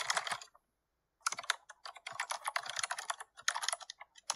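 Rapid clicking like keyboard typing, in runs of half a second to a second with brief dead-silent gaps between them.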